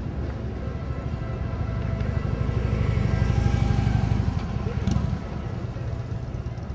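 Motorcycle engines running with a low, rapidly pulsing rumble that swells to its loudest about three to four seconds in, then drops off about five seconds in. A single sharp click comes at the moment the rumble drops.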